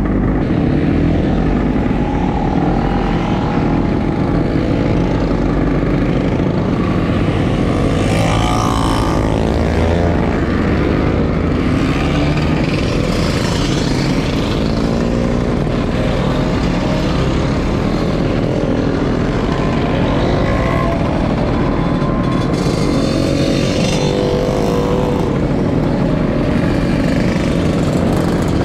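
A stream of vintage two-stroke Vespa and Lambretta scooters riding past one after another, engines running steadily, with several rising and falling engine notes as individual scooters go by.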